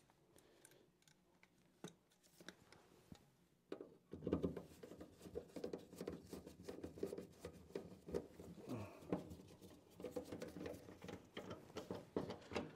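A screwdriver and gloved hands working at a gas furnace's sheet-metal collector box. From about four seconds in there is a rapid, irregular scratching and clicking; before that, little more than room tone.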